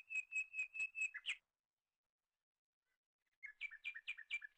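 A wild bird calling: a quick run of sharp, evenly repeated notes, about five a second, that stops about a second and a half in. A second run of the same kind of notes starts near the end.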